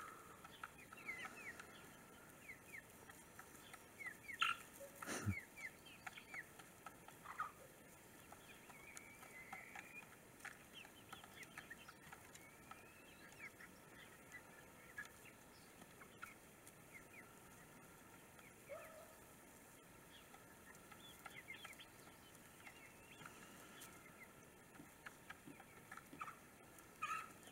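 Young chickens faintly peeping and clucking as they forage, in short scattered calls, with one sharp click about five seconds in.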